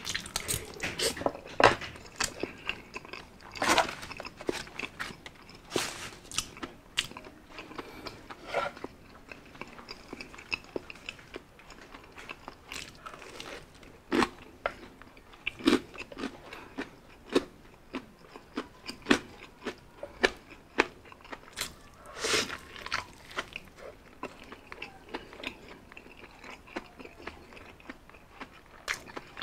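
A person eating: wet chewing of spaghetti, and biting and chewing crispy fried chicken with many irregular crunches and mouth clicks.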